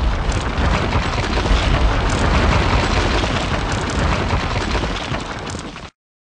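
Crumbling-wall crash sound effect: a continuous rumbling crash with a deep low end, easing slightly and then cutting off abruptly near the end.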